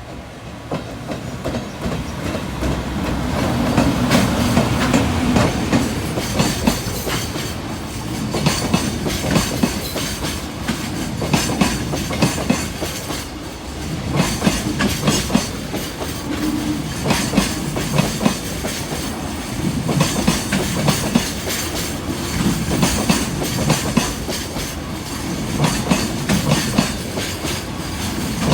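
A freight train of container flatcars rolling past, its wheels clacking over the rail joints in repeated clusters as each set of bogies crosses. The sound builds over the first few seconds, then stays loud.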